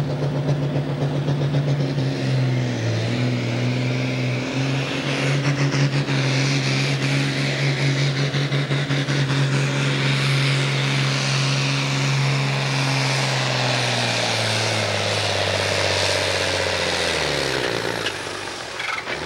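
International Harvester farm tractor's diesel engine running hard under load, pulling a weight-transfer sled, with a steady pitch. Near the end the engine speed sags as it bogs down, then the level drops off as the throttle comes back.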